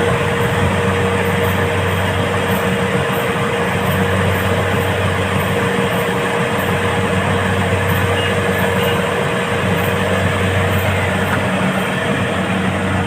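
Rice combine harvester's engine running steadily, a constant hum with a steady higher whine over it.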